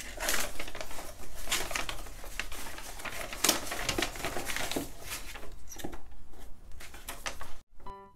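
Wrapping paper rustling and crinkling, with light taps, as hands unfold it from around a box. It cuts off sharply near the end and soft music begins.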